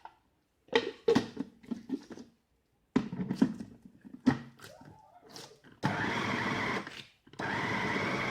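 Electric blender grinding cooked dried figs and garlic with honey and olive oil into a thick paste, run in two steady pulses of about a second each near the end. Before them come a few scattered knocks and clatters of handling.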